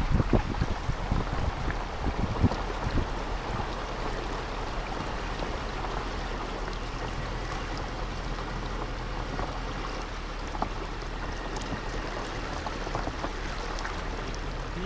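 Floodwater flowing in a steady rushing wash, with a few low thumps in the first three seconds.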